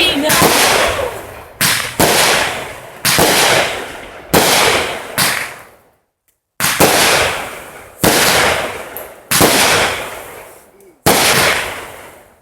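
Consumer fireworks going off one after another, about nine sharp bangs roughly every second and a half, each trailing off in a fading crackle. There is a brief silent gap about six seconds in.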